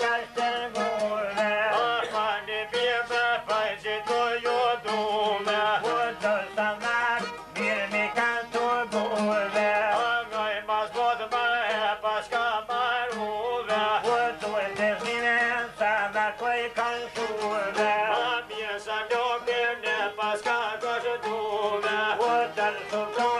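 Albanian folk music: a violin and a long-necked plucked lute play together, the lute keeping a fast, even plucked rhythm under the violin's melody, with a man singing.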